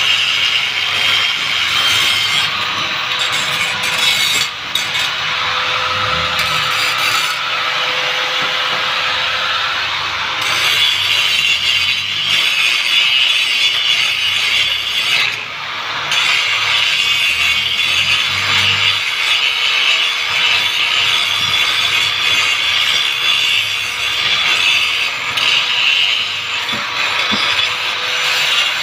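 Handheld electric power tool grinding along a metal flower pot stand frame: a steady motor whine under a harsh, continuous scraping rub, easing off briefly twice as the tool is lifted or shifted.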